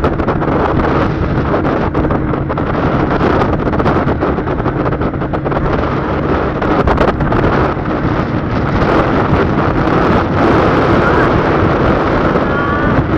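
Wind buffeting the microphone over the steady drone of a vehicle's engine and tyres at road speed.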